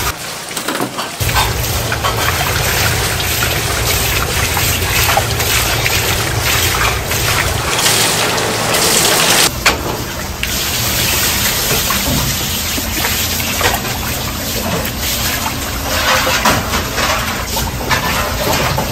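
Running water from a hose pouring into a basin and splashing as freshly boiled noodles are rinsed and rubbed by hand in a plastic colander. The water sound shifts abruptly about halfway through.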